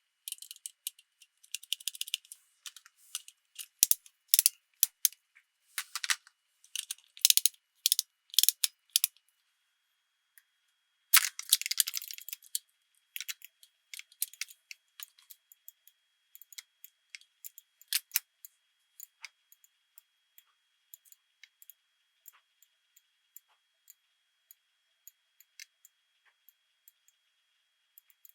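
Small plastic pieces of a miniature Anpanman toy kitchen set clicking and tapping as they are handled: a dense run of sharp clicks over the first nine seconds, a short scraping rustle about eleven seconds in, then only sparse light taps.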